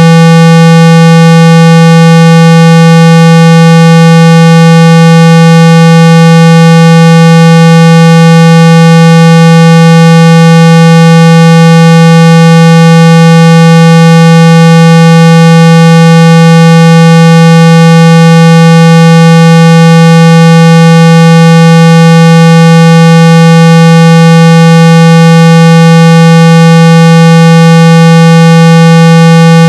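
A loud, steady 165 Hz electronic tone, unchanging in pitch and level, with fainter higher overtones above it. It is the kind of tone played through a phone speaker to shake water and dust out of it.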